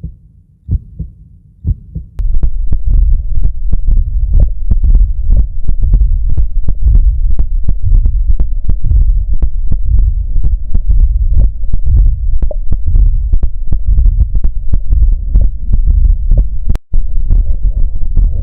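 Heart sounds recorded through the Stethophone smartphone stethoscope: repeated beats over a continuous low rumble, loud from about two seconds in, with a brief dropout near the end. The recording is presented as a diastolic murmur, a sign of heart pathology.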